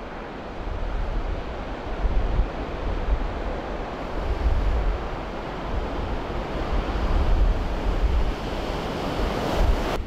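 Strong winter-storm wind blowing in gusts that swell and ease, buffeting the microphone with a low rumble.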